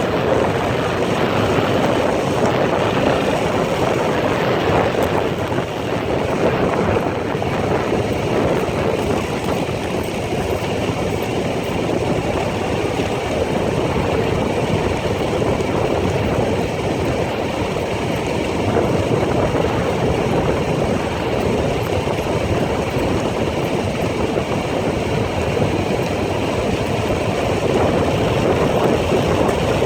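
ATV engine running steadily while the quad is ridden along a dirt trail.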